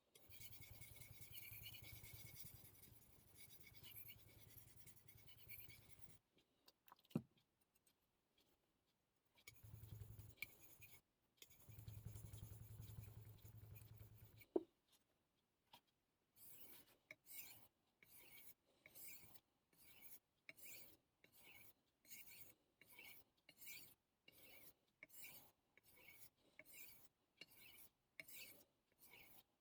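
Damascus-steel carving knife being sharpened on the 800-grit, resin-bonded side of a Naniwa combination Superstone, the blade scraping across the wet stone. In the first half there are two long stretches of continuous scraping with a low hum. From about the middle on come regular single strokes, a little more than one a second.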